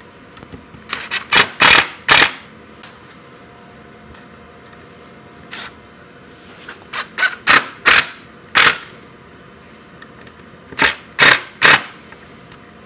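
Makita cordless driver running screws into a steel euro cup hinge in an oak cabinet door, in short bursts of the trigger, three clusters of three to five each.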